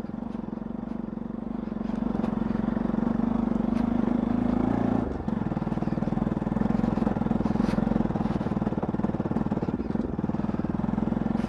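Motorcycle engine running steadily while riding a rough dirt track, with its note dipping briefly about five seconds in, as at a throttle change, over steady road and wind noise.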